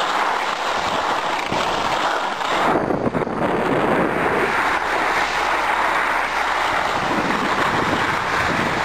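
Steady rushing hiss of skiing downhill: skis sliding and scraping over packed snow, mixed with wind rushing over the microphone.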